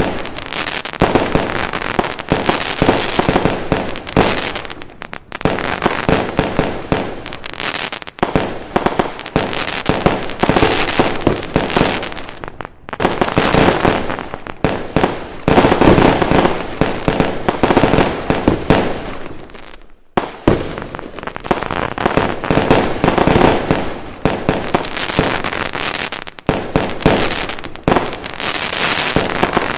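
Fireworks going off in a dense barrage: rapid crackling and bangs one after another, with brief lulls a few times before the firing picks up again.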